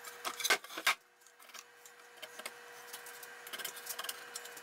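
A few sharp knocks of wooden boards being handled on a wooden pallet in the first second, then faint scratching and light ticks over a steady faint hum.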